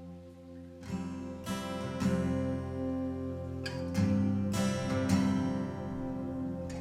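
Acoustic guitar strumming the opening chords of a song, starting about a second in, with a chord change near the middle.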